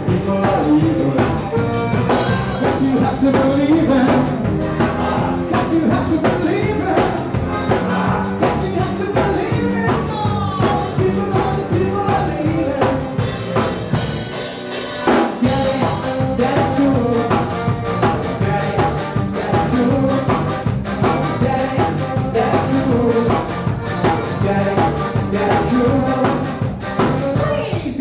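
A live ska band playing: drum kit, saxophone and accordion, with singing. About halfway through, the bass and drums drop out for about a second, then the full band comes back in.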